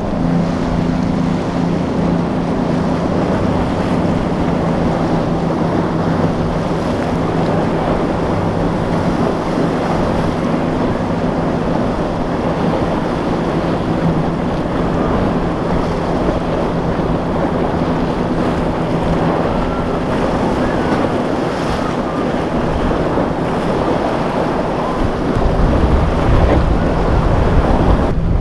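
Outboard-powered center-console boats running hard through choppy surf, a steady engine drone over the noise of breaking waves, with wind buffeting the microphone. The engine drone fades out about two-thirds of the way through, and the wind rumble grows louder near the end.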